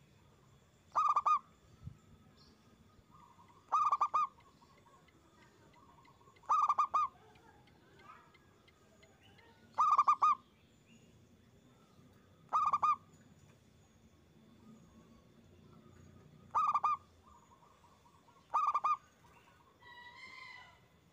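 Male zebra dove (perkutut) singing its loud, stuttering coo: seven short calls, one about every three seconds. A fainter, higher bird call comes just before the end.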